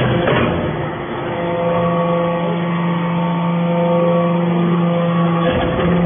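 Hydraulic briquetting press for metal chips running, its hydraulic pump and motor giving a steady hum, with a sharp knock about a third of a second in and another near the end.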